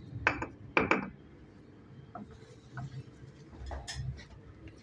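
Two sharp clinks about half a second apart, followed by fainter scattered knocks: bricks and masonry tools being handled while stove brickwork is laid around a damper.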